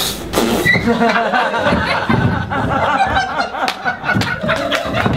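A sharp impact at the start, then a theatre audience laughing.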